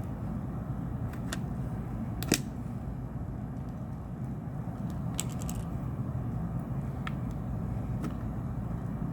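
Small sharp plastic clicks and snaps as a pry pick works the clips of a smartphone's back cover loose. There is one loud snap about two seconds in and a quick cluster of clicks a little past halfway, over a steady low hum.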